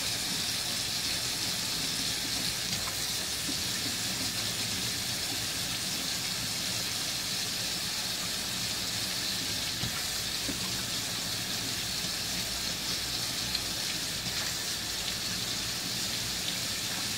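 Tap water running steadily over a vinyl record in the sink, rinsing off the detergent and dirt.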